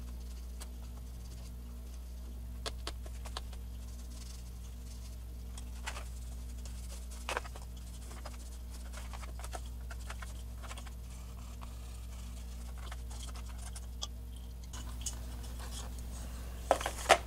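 Scattered light clicks, taps and rubbing as a plastic computer power-supply fan is handled and its blades wiped with an alcohol-soaked cotton ball, with a pair of sharper clicks near the end. A steady low hum runs underneath.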